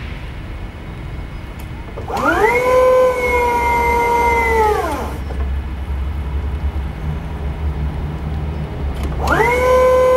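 Hyster E30HSD electric stand-up forklift's hydraulic pump motor whining as the fork lever is worked. It winds up, runs steadily and winds down, then starts a second run near the end, over a low steady hum.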